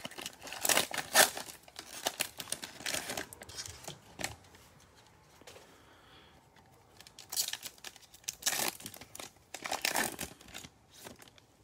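Foil wrapper of a football trading-card pack crinkling and tearing as it is ripped open and peeled off the cards by hand. The noise comes in irregular bursts, with a quieter pause about halfway through.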